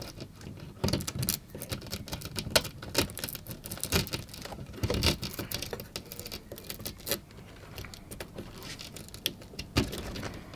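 Irregular small clicks, taps and rustles of fingers handling a model railway semaphore signal, working its base into place so it sits upright.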